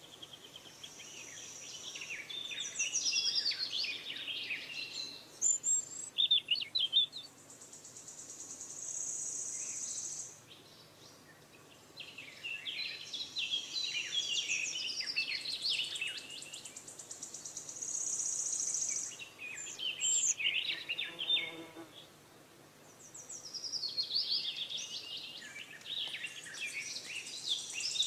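Birds chirping and twittering in bursts of several seconds with quieter gaps between them, over a steady high hiss.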